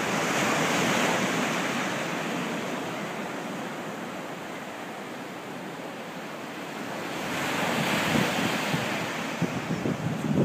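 Black Sea surf breaking and washing up the shore in a steady rush that swells about a second in, eases off, then swells again around eight seconds in. Some wind buffets the microphone near the end.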